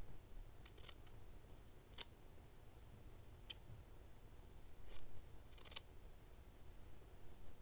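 Scissors snipping through cotton t-shirt knit, cutting slits to make one continuous strip of t-shirt yarn. There are several separate, sharp snips spaced a second or so apart.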